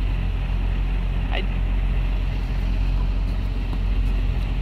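Steady low rumble of outdoor background noise, with one short falling whistle about a second and a half in.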